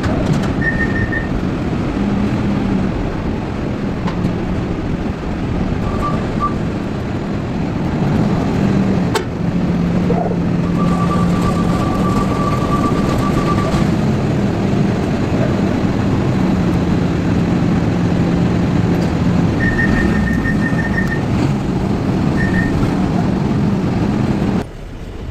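A heavy vehicle or machine engine running steadily, with short electronic beeps now and then. The sound drops off suddenly near the end.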